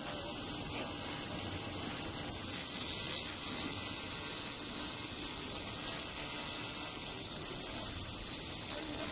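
Handheld laser welding machine at work, giving a steady, even hiss with no breaks or sharp clicks.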